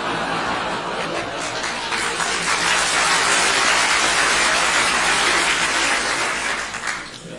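Large audience laughing and clapping, swelling louder about two seconds in and dying away near the end.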